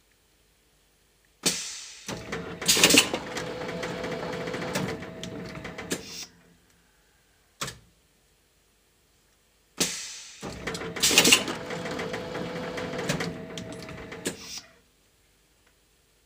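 Plastic-bottle blow moulding machine working through two cycles, each about five seconds of hissing and mechanical noise with a steady hum, separated by a pause with a single short click.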